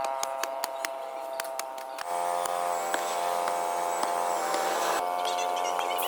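A steady mechanical buzz from a small motor. Evenly spaced clicks run over it for the first two seconds, then it changes abruptly and carries on as a steadier hum.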